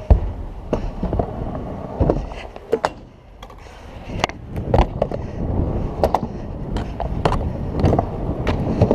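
Trick scooter wheels rolling fast over concrete and ramp surfaces, with a string of sharp clacks and knocks as the scooter lands, spins its bars and hits ramp edges and a rail. There is a brief quieter spell about three seconds in.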